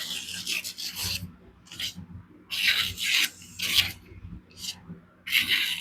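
Steel knife blade drawn in about six short rubbing strokes, each a brief hiss, with the longest near the start and around three seconds in.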